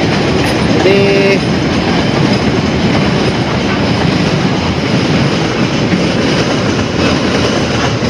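Steady road and wind noise from a car driving at speed.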